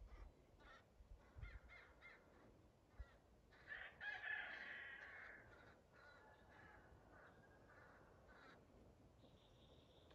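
Ravens calling faintly: a few short calls, with one longer call about four seconds in that is the loudest.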